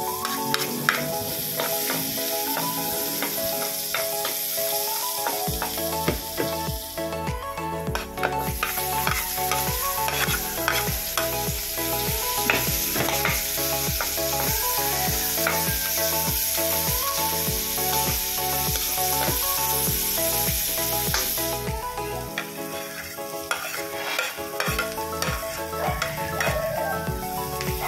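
Diced meat sizzling in hot oil in a nonstick wok, with a plastic spatula scraping and stirring as onions and sliced sausage go in. Background music with a steady beat plays underneath.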